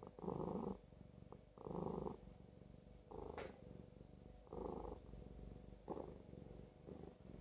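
Domestic cat purring close by, swelling into a louder burst about every second and a half with a softer purr in between, the sound of a relaxed, contented cat being petted.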